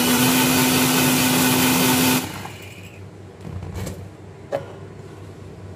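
Electric mixer grinder (mixie) running steadily as it whips oil and water into a creamy white emulsion, then switched off and stopping abruptly about two seconds in. After that, quieter handling of the jar with a sharp click.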